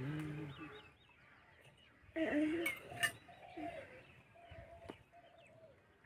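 Young goat kid bleating, a short call at the start and a louder one about two seconds in, followed by a couple of sharp metallic clinks of a spoon against a steel bowl, with birds chirping faintly.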